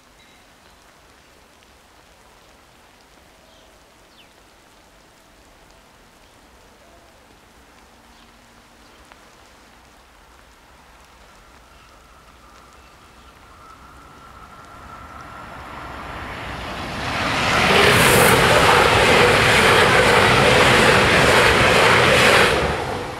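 Light rain falling, then a Bombardier Talent 2 electric multiple unit approaches, growing louder from about 14 seconds in. It passes close by for about five seconds with loud wheel and rail noise, and the sound drops away sharply near the end.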